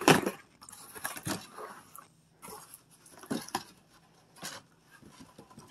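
Irregular handling noises of a taped cardboard box being worked open by hand: scattered rustles, scrapes and light knocks, the loudest a sharp knock right at the start.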